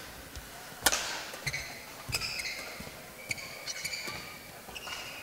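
Badminton rally: sharp racket strikes on the shuttlecock roughly a second apart, the loudest about a second in, with short high squeaks of court shoes on the mat between the hits.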